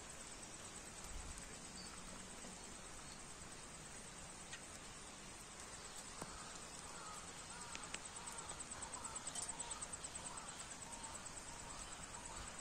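Light rain falling on a pond, a faint steady hiss, under an insect's high, continuous pulsing trill. About halfway in a second rapid pulsing animal call joins and grows louder.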